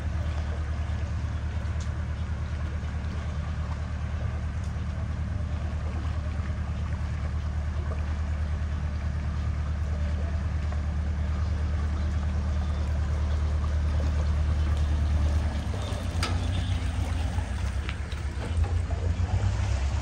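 An engine running with a steady low rumble that turns rougher and uneven about three-quarters of the way through.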